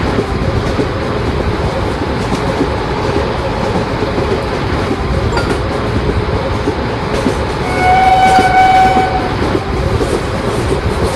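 Indian Railways train running past with a steady rumble and wheel clatter on the rails; about two-thirds of the way in, a train horn sounds one steady blast lasting over a second.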